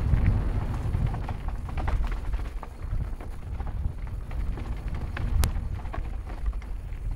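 Mountain bike rolling fast down a dirt singletrack: wind rumbling on the microphone, with tyre noise and scattered rattles and clicks from the bike over bumps, and one sharp click about five seconds in.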